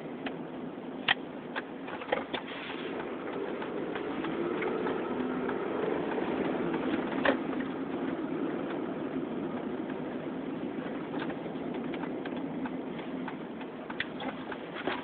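Inside the cabin of a 2005 Chevrolet Monte Carlo LT under way: steady drone of its 3.8-litre V6 and road noise, with a few sharp clicks or knocks.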